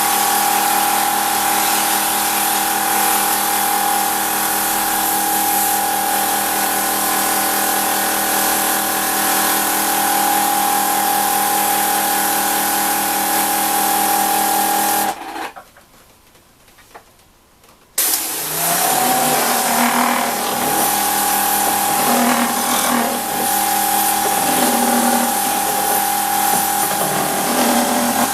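Hitachi Koki AW18DBL cordless pressure-washer pump running with a steady motor whine. About halfway through it stops suddenly for about three seconds, then starts again and runs less evenly.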